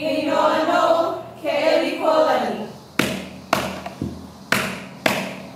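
A Hawaiian mele chanted for hula. After about two and a half seconds the chanting stops and a run of five sharp percussion strikes follows, roughly two a second.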